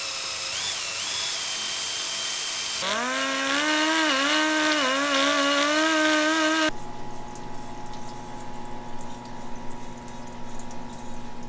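Workshop tools on a Honda CBX cylinder head in quick succession: first a hissing power-tool sound, then about three seconds in a pneumatic die grinder's whine that dips in pitch and recovers as it bites into the aluminium. About seven seconds in it switches to the steady hum of a parts-washer pump with running solvent.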